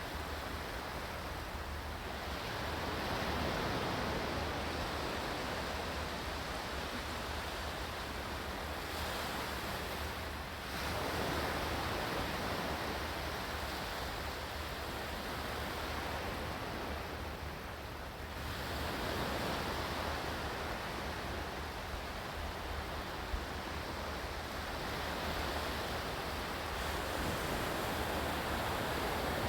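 Ocean surf: a continuous rush of waves that swells and eases every eight seconds or so.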